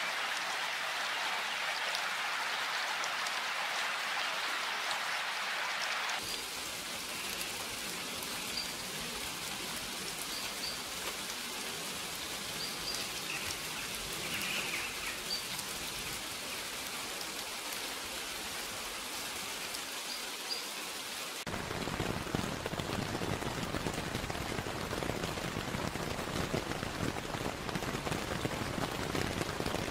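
Steady rainfall that changes character twice with abrupt cuts: first an even hiss of rain, then from about six seconds in a lighter patter with a few faint high chirps, then from about two-thirds through a heavier, fuller downpour with more low rumble.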